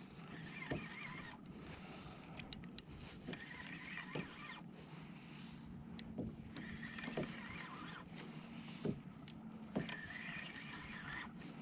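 Fishing reel being wound in against a hooked fish, with water sloshing around the kayak and scattered sharp knocks on the hull.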